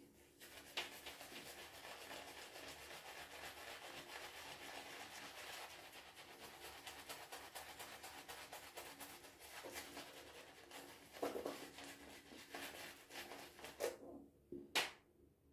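Mühle Rytmo synthetic-fibre shaving brush working lather over the face: a steady, faint, quick brushing and rubbing of bristles through wet lather, with a few short knocks late on.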